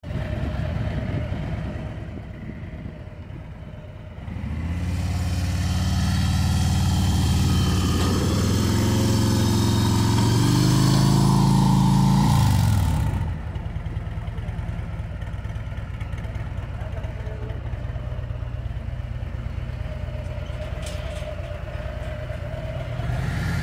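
Harley-Davidson bagger's V-twin engine starts and idles, then revs under load for several seconds with its pitch rising as the bike is ridden up the trailer ramp. About thirteen seconds in it drops back to a steady idle.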